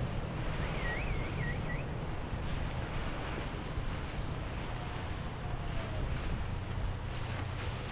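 Wind buffeting the microphone over the wash of waves, with the steady low rumble of a passing boat's engines underneath. A short warbling whistle sounds about a second in.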